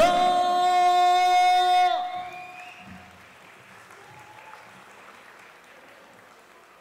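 A loud, steady held tone with overtones for about two seconds, cutting off sharply, then a crowd of guests applauding, growing gradually softer.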